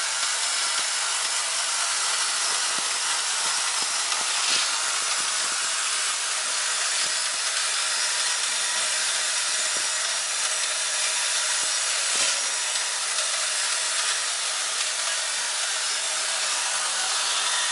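Screw packaging machine running: a steady noise from its vibratory feeders and feed chutes, with a few faint clicks.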